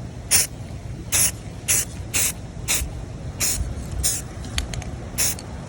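Rust-Oleum aerosol spray paint can giving short, repeated bursts of hissing spray, about two a second with uneven gaps, over a low steady rumble.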